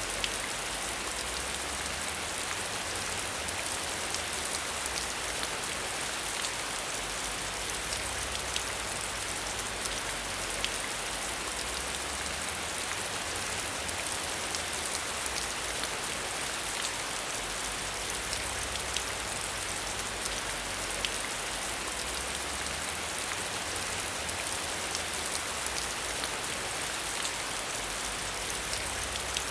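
Steady rain falling, with dense patter and many small individual drop ticks on a hard surface, as heard from behind a window.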